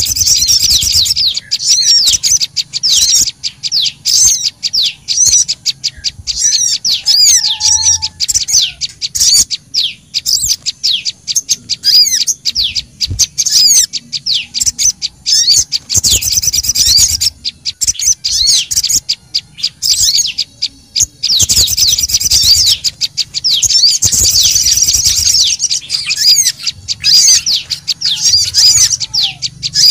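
Bird-lure recording of small songbirds, sogon and prenjak lumut calling together: a busy, unbroken stream of rapid high chirps and trills, agitated and noisy, thickest in a stretch past the middle.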